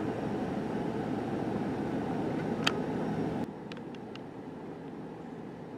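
Steady outdoor background noise, an even low rumbling hiss. It drops to a quieter hiss about three and a half seconds in, with one sharp click shortly before that.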